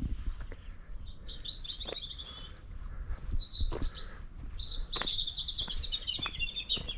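A songbird singing in phrases of quick, warbling notes, beginning about a second in, with one brief higher-pitched phrase near the middle.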